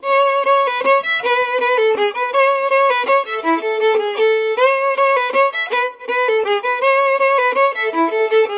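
Violin music: a fiddle melody of quick, changing notes, starting suddenly after silence.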